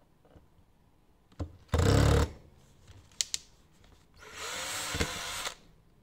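Cordless drill boring 3 mm pilot holes into a white uPVC door sash, in two runs: a short loud burst about two seconds in and a longer run near the end, the motor speeding up as it goes. A few sharp clicks fall between the runs.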